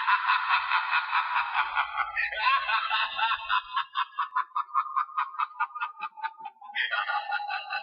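High-pitched maniacal cackling laughter in rapid, evenly spaced 'ha-ha-ha' bursts, about four a second, tailing off and then breaking out loudly again about seven seconds in.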